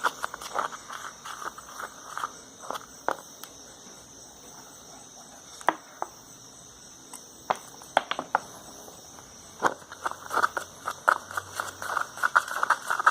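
Cornstarch-and-dish-detergent slime being worked, giving irregular sticky clicks and crackles that come in quick runs, thinning out in the middle and picking up again near the end.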